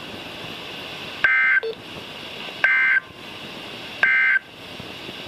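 NOAA Weather Radio SAME end-of-message data bursts: three short, buzzy digital chirps about a second and a half apart over steady radio hiss, the signal that marks the end of the EAS alert.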